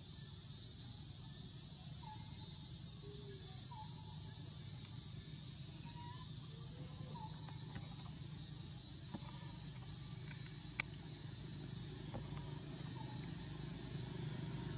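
Quiet outdoor ambience: a steady high insect drone over a low rumble that grows louder toward the end, like a vehicle approaching. Faint short chirps come every second or so, and there is one sharp click a little past the middle.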